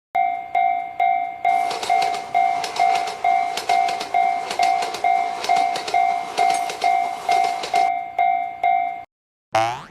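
Japanese railroad crossing (fumikiri) alarm bell ringing in a steady 'kan-kan' about twice a second. A train clatters over the crossing through the middle of it, with rapid clicking wheels. The bell cuts off near the end, followed by a brief sliding tone.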